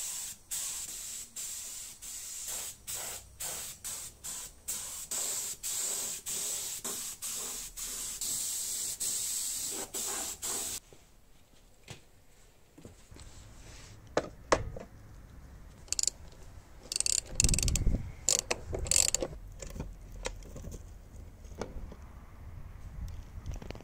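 Compressed-air spray gun hissing as it sprays primer onto motorcycle parts, in about a dozen short bursts as the trigger is pulled and released, stopping about eleven seconds in. After a quiet pause come a few scattered knocks and clatter.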